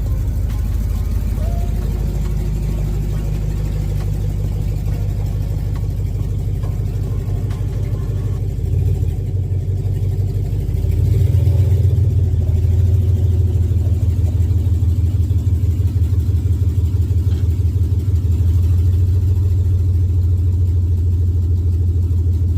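LS V8 engine idling with a carburetor spacer fitted under its fuel-injection throttle body elbow, a steady low pulsing exhaust note. About eleven seconds in it steps up and gets louder, then holds steady.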